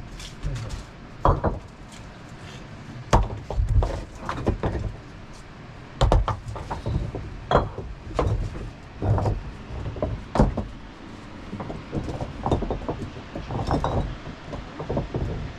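A series of irregular sharp knocks and clinks, some with a dull thud under them, about one or two a second.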